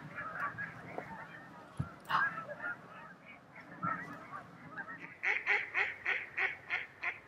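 Flock of waterfowl (tundra swans with Canada geese) calling: a babble of overlapping calls, then a run of about eight loud calls in quick, even succession near the end.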